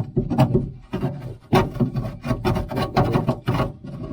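A quick run of short scrapes, rubs and taps from dry dirt being worked by hand in the bottom of an old truck's steel door.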